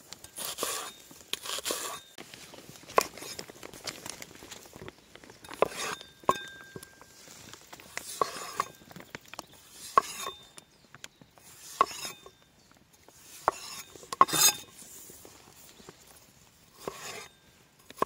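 Large cleaver-style knife slicing red onion and then cucumber on a wooden cutting board: short crisp cutting strokes through the vegetable and sharp taps of the blade on the board, one every second or two at an uneven pace.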